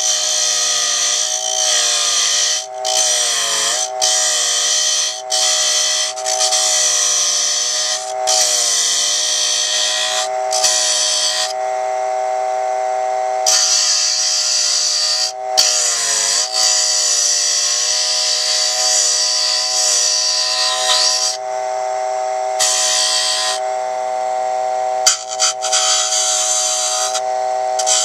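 Dremel Moto-Lathe Model 700's small electric motor whining steadily while a hand-held turning tool scrapes the spinning wooden spindle. The cutting hiss stops and starts as the tool is lifted and set back against the wood, and the motor's whine sags briefly in pitch twice.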